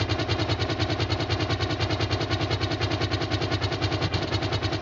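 Helicopter rotor sound, a fast, even chopping beat that holds steady.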